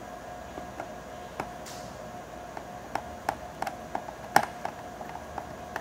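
Small screwdriver driving a screw back into a laptop's internal metal frame: scattered sharp clicks and ticks of the tip working in the screw head, the loudest about four and a half seconds in, over a steady faint hum.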